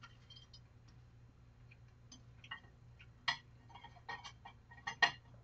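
Scattered light clicks and taps at an uneven pace, a few sharper ones in the second half, over a faint low hum.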